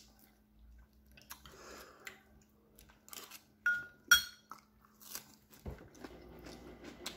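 Chewing food with soft mouth clicks, and a metal spoon clinking sharply against the bowl about four seconds in.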